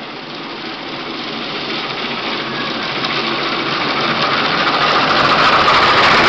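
A steady rushing, machine-like noise fading in and growing louder throughout.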